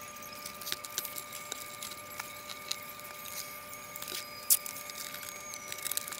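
Scattered light clicks, taps and rustles from handling an RC jet's foam-cradled wing and a clear plastic strip on a workbench, with one sharper click about four and a half seconds in. A faint steady tone runs underneath.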